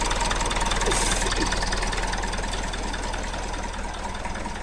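Old diesel forklift engine idling with a steady diesel clatter, running just after a cold start on start spray. A short hiss sounds about a second in.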